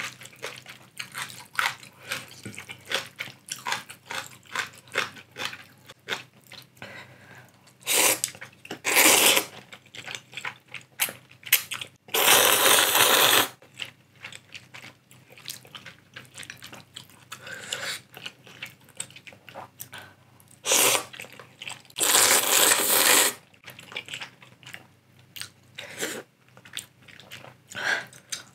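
Close-up slurping of spicy Korean instant ramyeon noodles: five loud slurps, the longest over a second, with wet chewing and small mouth clicks between them.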